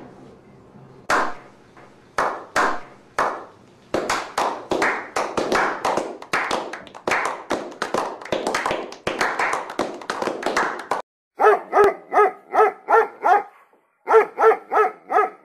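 A few slow, separate hand claps build into steady applause from a small group. Near the end, a dog barks in quick repeated barks, in two runs.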